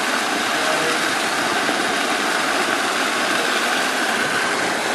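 Water cascades from a pool's sheet-water fountains pouring into the pool: a steady rushing splash that holds even throughout.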